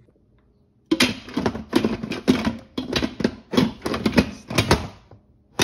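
Lid of an Instant Pot Viva electric pressure cooker being set on the pot and twisted shut: a rapid, irregular run of clicks and clatter starting about a second in, with a single sharp click near the end.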